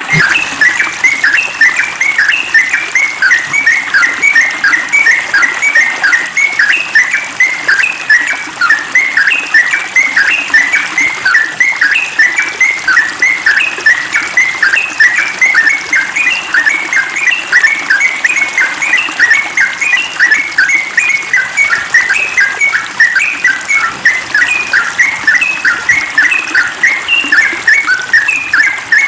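Yellow-vented bulbul (trucukan) singing a fast, unbroken run of short chirping notes, several a second.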